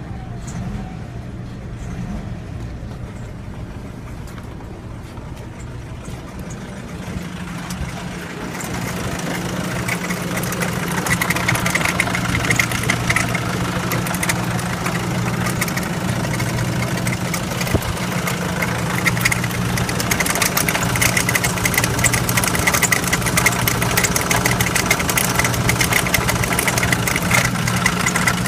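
Nissan dCi turbo-diesel engine idling steadily. It is muffled for the first several seconds, then louder from the open engine bay, where a fast, even ticking clatter comes through over the hum.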